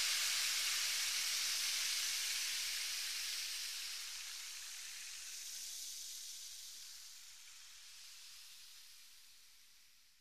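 A steady, even hiss, mostly high-pitched, that slowly fades away over the whole stretch and is almost gone by the end.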